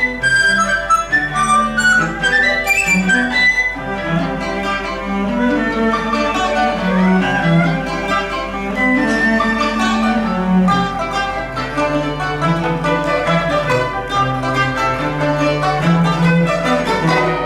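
A Chinese-instrument chamber sextet (erhu, dizi, pipa, yangqin, zhongruan and cello) playing a slow piece. Bowed strings are to the fore, sustained erhu and cello lines over plucked and struck notes.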